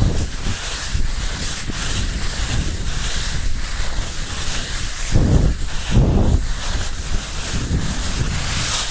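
Wind buffeting the microphone of a phone carried down a ski run, with heavy low gusts about five and six seconds in, over a steady hiss of skiboards sliding on snow.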